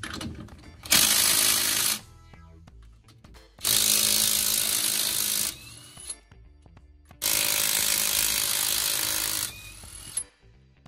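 DeWalt DCF886 cordless impact driver hammering out the differential bearing cap bolts on a Dana 44 rear axle, in three bursts: a short one about a second in, then two longer ones of about two seconds each.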